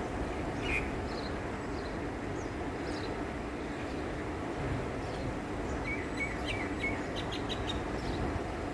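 Small birds chirping now and then over a steady low outdoor rumble, with a quick series of chirps about seven seconds in.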